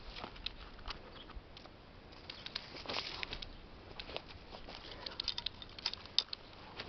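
Dry leaves and straw crackling and rustling underfoot in short, irregular clicks, busiest about three seconds in and again between five and six seconds.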